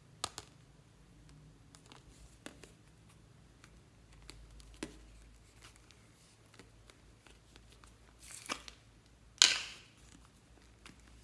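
Plastic slime jars handled: scattered light clicks and taps, then two brief crackling rustles about eight and nine seconds in, the second much louder.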